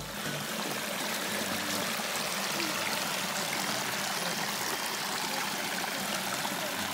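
Small stream running over stones in a shallow channel, a steady rush of water.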